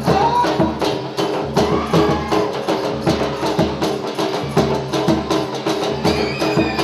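Gujarati folk dance music: percussion keeping a fast, even beat under held tones and a melody line.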